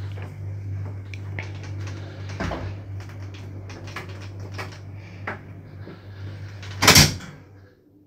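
A 1973 passenger elevator running with a steady low hum and scattered clicks and knocks. About seven seconds in there is a single loud clunk, and the hum stops just after it.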